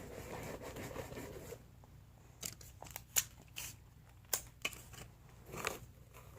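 Scissors snipping cardboard: about half a dozen separate sharp cuts spread over the last few seconds, with soft handling rustle between them.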